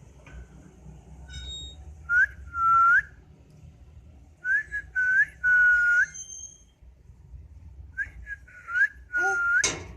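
Door hinge squeaking as the door is pushed back and forth: high, steady squeals, each ending in a short upward bend, come in three bursts. A knock follows near the end.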